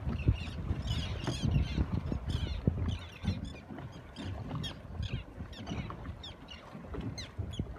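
Choppy sea water slapping against a small boat, with wind on the microphone, under a steady run of short, high, squeaky chirps, several a second.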